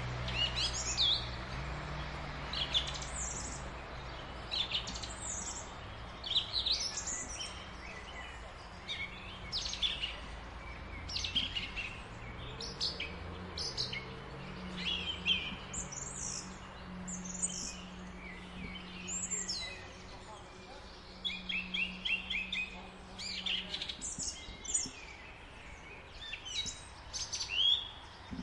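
Many small birds chirping and singing in quick, overlapping calls, over a low steady hum that shifts slowly in pitch and stops about four seconds before the end.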